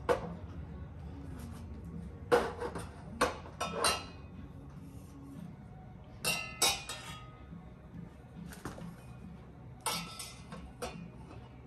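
Small metal exhaust connectors clinking and clacking against each other and hard surfaces as they are handled, in irregular bursts of sharp, lightly ringing knocks.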